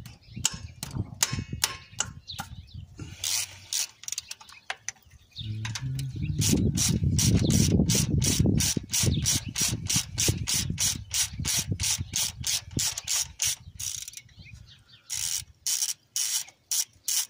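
Hand socket ratchet clicking in quick runs as a bolt is turned on the engine. A low rumble rises under the clicking for a few seconds in the middle, and the clicking comes in louder, separate runs near the end.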